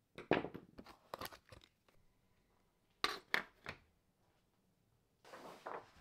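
Short plastic clicks and knocks as the plastic vanity-mirror unit of a VW T5/T6 sun visor is prised out of the visor's foam body and handled, with two sharper knocks about three seconds in and a soft rustle near the end.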